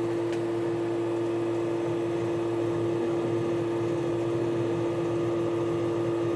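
Desktop computer system unit humming with a steady drone of two constant pitches, with one faint click shortly after the start. The owner says this humming comes on with the PC freezing when several browser tabs load, and does not know the cause.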